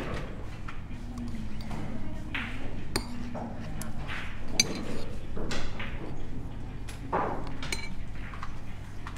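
A few sharp pool-ball clicks, with low voices in the room.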